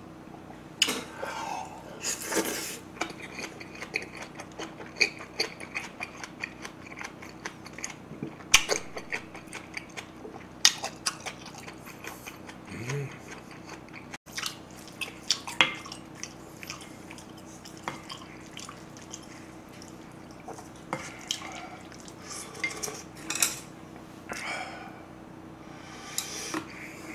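Spoon and chopsticks clinking and scraping against a bowl of mixed rice, scattered irregular clicks while eating, over a faint steady hum.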